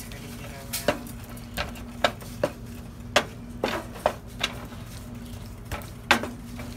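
A cooking utensil knocking against a skillet while sautéing peppers and onions are stirred: about ten sharp knocks at uneven intervals.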